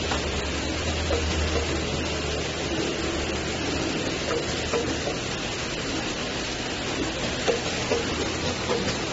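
Bottle filling line machinery running: a steady mechanical noise from the rotary turntable and conveyor, with a low hum that drops away about four seconds in and a few light knocks near the end.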